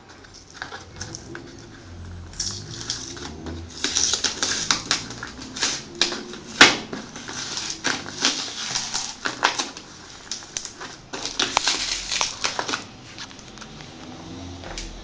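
Rustling and quick clicking as a boxed Apple keyboard and its packaging are handled, in bursts of a few seconds.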